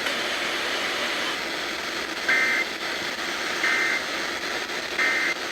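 Emergency Alert System end-of-message signal over FM radio: three short, shrill warbling digital data bursts, each about a third of a second long and about 1.3 seconds apart, over steady radio static hiss.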